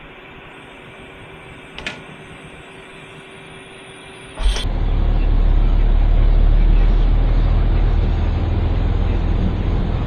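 Semi truck's diesel engine running, heard from inside the cab: a loud, steady low rumble that comes in abruptly about halfway through. Before it there is only a quieter steady hum with a single click.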